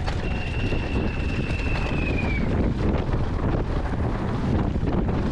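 Wind buffeting the microphone: a steady, rushing roar, heaviest in the low end. A faint high whistling tone runs through the first two seconds or so and sags slightly in pitch just before it fades.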